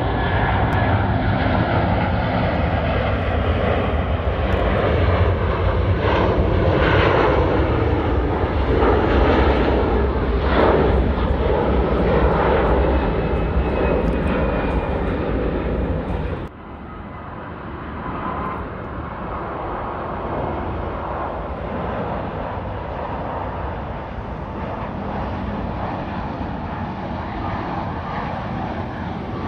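Airbus Beluga XL's twin Rolls-Royce Trent 700 turbofans making a loud jet roar as the aircraft climbs away at take-off power. About sixteen seconds in, the roar cuts off suddenly to a quieter, steady engine noise from the aircraft on landing approach.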